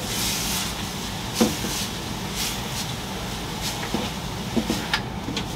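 Faint clicks and light knocks from handling the front of a glass terrarium, spread over a few seconds, over a steady hiss.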